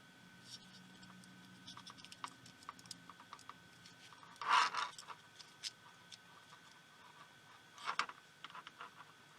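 Small clicks and scrapes of tools on the tiny parts of a pico projector being taken apart, with two louder scraping rustles about halfway through and near the end.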